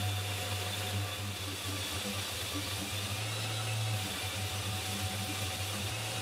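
Random orbital sander running steadily as it sands set filler smooth with a fine-grit disc, together with the hum of its hose-connected dust extractor.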